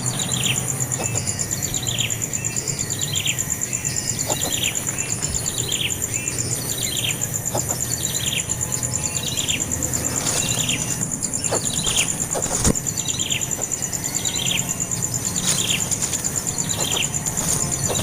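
A bird chirping steadily, a short downward-sliding chirp repeated about once a second.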